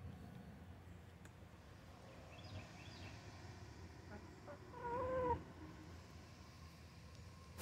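White Orpington hen giving one drawn-out, wavering call about five seconds in, lasting about half a second.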